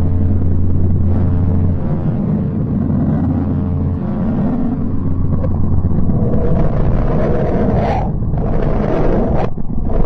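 Deep, rumbling space-sound recording: a steady low hum with a ladder of overtones, giving way about six seconds in to rougher, rushing stretches that switch on and off abruptly.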